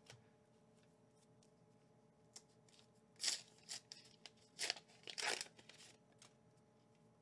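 Pokémon card promo pack being torn open and its wrapper crinkled: a handful of short tearing rustles from about three seconds in, with faint clicks of cards being handled around them.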